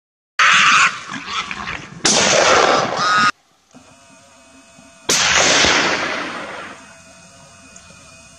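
A gunshot a little past five seconds in, its report echoing away over about a second and a half. Before it come two loud bursts of noise, the second cut off abruptly.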